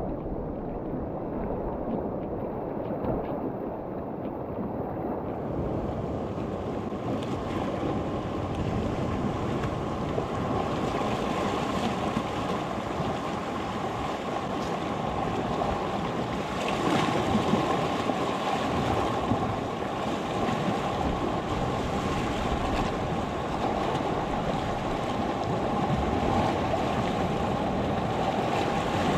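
Sea waves washing steadily against the shore, with wind noise on the microphone.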